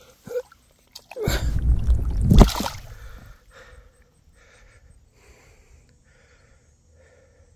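Largemouth bass let go into shallow lake water: a burst of handling noise and a splash, loudest about two and a half seconds in, after which only faint short repeated sounds remain.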